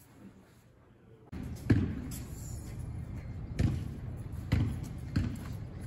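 Near silence, then, about a second in, a steady outdoor background rumble with four dull thumps at uneven intervals.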